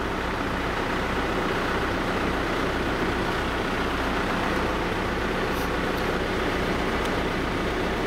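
Heavy diesel construction machinery, an excavator with a dump truck beside it, running steadily: an even, low engine rumble with no clear knocks or changes.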